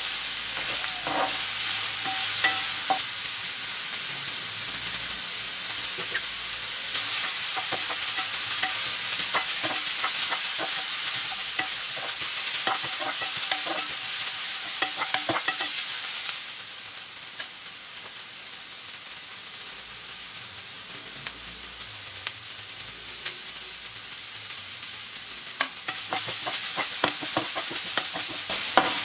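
Sliced onion and capsicum sizzling in hot oil in a frying pan while a metal spoon stirs them, scraping and clicking against the pan. The sizzle drops quieter a little past halfway and picks up again near the end.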